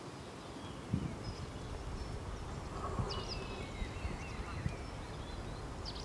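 Outdoor ambience of small birds chirping over a low wind rumble, with a few dull thuds about one and three seconds in.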